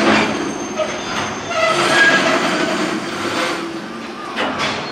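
Freight container flatcars (Koki 104 type) rolling through a station at speed: a steady rumble of steel wheels on rail with a clatter of wheel sets over rail joints, strongest near the end, and a brief high wheel-squeal tone about two seconds in.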